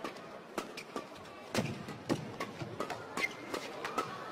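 Badminton rackets striking the shuttlecock in a fast, flat mid-court drive exchange: a quick run of sharp hits.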